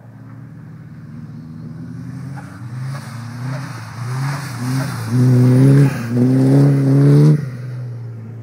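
Car engine revving hard in repeated throttle surges as the car slides through a bend on snow, growing louder as it nears. The loudest surges come about five to seven seconds in, then the revs cut off abruptly as the throttle is lifted.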